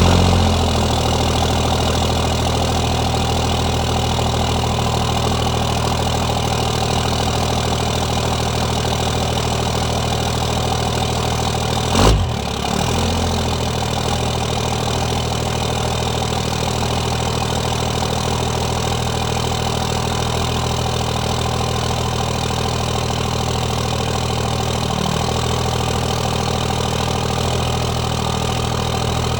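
Diesel engine idling steadily just after a cold start. A single brief, loud thump about twelve seconds in.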